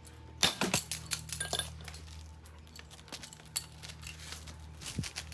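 An axe blow strikes a cheap standard electrical receptacle about half a second in, chopping through its metal strap. Small broken plastic and metal pieces then clink and rattle for about a second, with a few scattered clicks afterwards.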